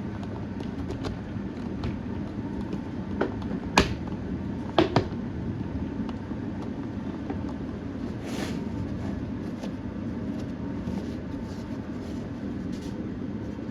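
Handling of a model locomotive's box and plastic packaging: a few sharp clicks and taps about three to five seconds in, the loudest near four seconds, over a steady room hum.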